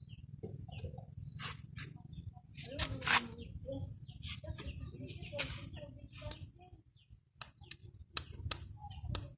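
Irregular sharp clicks and light taps of small metal carburetor parts being handled and worked on, over a low steady hum, with short chirps mixed in.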